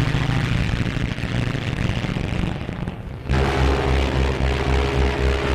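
An ocean liner's deep horn sounding a long steady blast, then, after a short break about three seconds in, a louder and lower blast held on.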